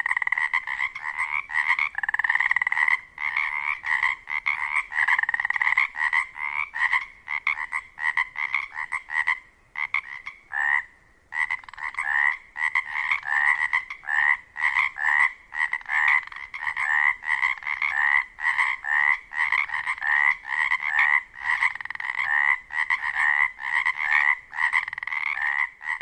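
A chorus of male Pacific chorus frogs (Pacific tree frogs), many short croaking calls overlapping in a dense, fast rhythm: the mating-season chorus by which males attract females. The chorus thins briefly about ten seconds in, then carries on.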